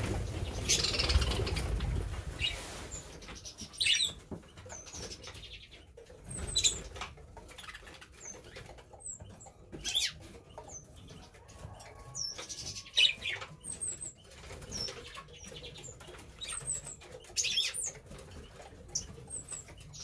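Aviary budgerigars fluttering and flapping their wings, with many short high chirps. A louder rustling flurry fills the first couple of seconds.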